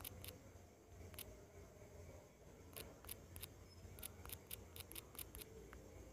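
Faint, irregular sharp clicks of typing on a phone's on-screen number pad as digits are entered, several in quick succession about four to five seconds in, over a low steady hum.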